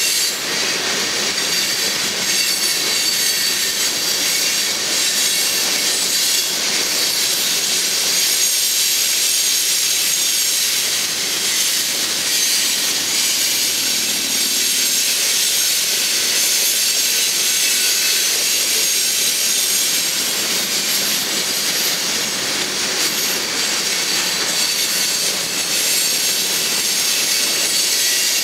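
Freight train's covered hopper cars rolling past, steel wheels running on the rails with a steady high-pitched squeal.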